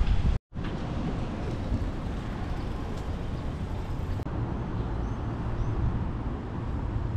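Outdoor city ambience: a steady low hum of distant traffic. It cuts out briefly about half a second in.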